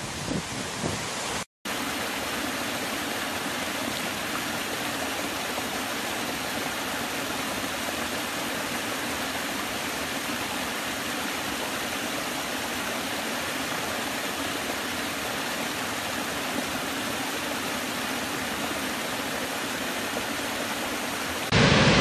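A small woodland stream spilling over low rocky cascades, a steady, even rush of water. About a second and a half in the sound drops out briefly, and near the end a much louder, fuller rush of a big waterfall cuts in.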